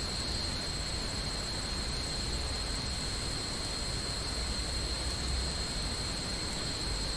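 Steady hiss with a thin, high-pitched whine held over it and a faint low hum: the background noise of a livestream's microphone picking up an empty room.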